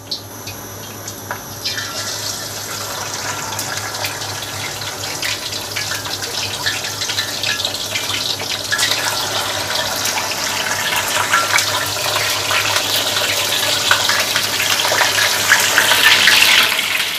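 Masala-coated fish deep-frying in hot oil: dense sizzling and crackling that starts suddenly about a second and a half in, as the fish goes into the oil, and grows louder toward the end.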